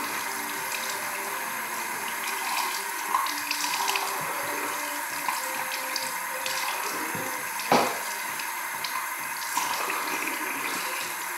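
Bathroom sink faucet running steadily, with splashing as water is cupped in the hands and brought to the face. There is a sharper, louder hit just before eight seconds in.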